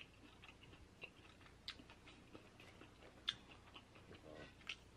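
Faint chewing of a mouthful of food with closed lips: soft wet mouth clicks, and a few sharper clicks spread through.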